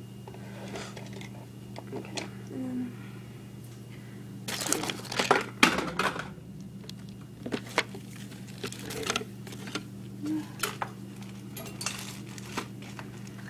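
Small makeup items being handled and picked through: scattered clicks and taps, with a louder burst of rustling and clattering about five seconds in. A steady low hum runs underneath.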